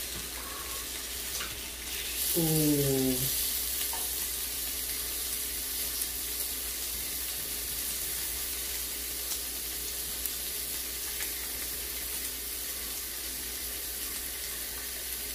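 Bacon and meat sizzling steadily on an electric tabletop grill plate, a frying hiss that grows a little louder about two seconds in. A person gives a short falling hum about two and a half seconds in.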